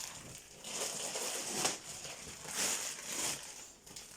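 Dog-bed packaging rustling and crinkling as it is handled, in a few swells of noise.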